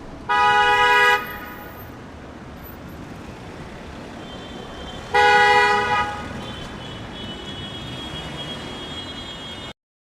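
Car horn honking twice, two blasts of just under a second each about five seconds apart, over steady road traffic noise that cuts off suddenly near the end.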